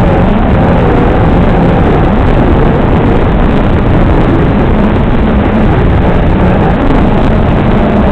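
FPV racing quadcopter's Cobra Gold Edition brushless motors and propellers whining, the pitch rising and falling with throttle, under a heavy steady hiss.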